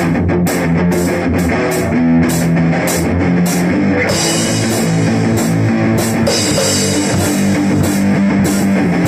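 Rock instrumental: guitar over a drum kit playing a steady beat, with held low notes underneath.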